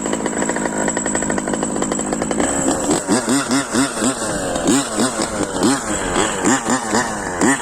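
Two-stroke petrol engine of a 1:5-scale Losi 5T RC truck, fitted with a BZM exhaust, running at high revs. From about two and a half seconds in, the throttle is blipped over and over, the revs rising and falling about twice a second.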